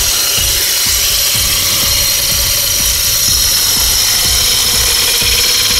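Homemade battery-powered electric chainsaw with a 24-volt DC motor running steadily with a high whine while cutting into an orange-tree branch.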